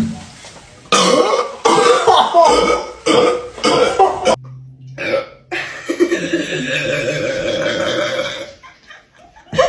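A person burping after gulping carbonated Sprite: a run of short burps over the first few seconds, then one long burp lasting nearly three seconds.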